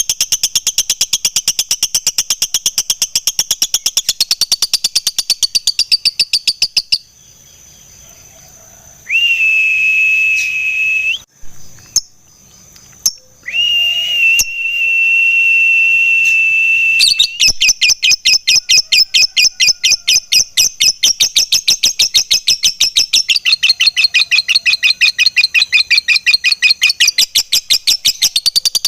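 Lovebird 'ngekek' song: a long, fast string of sharp high chirps, several a second. About a third of the way in it breaks off for a few seconds of long, steady high whistles, then the rapid chirping starts again.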